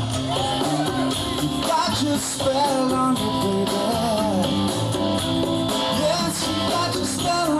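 Live rock band playing, with electric guitar prominent; pitched lines bend up and down over the steady band.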